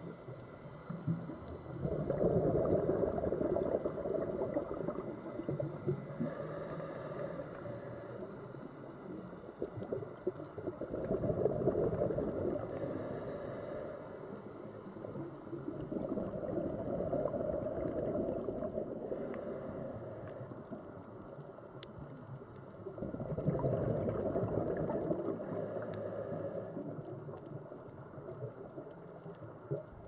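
Scuba diver's exhaled bubbles gurgling out of the regulator, recorded underwater, in four bursts about every six to seven seconds with each breath, with a low hiss between.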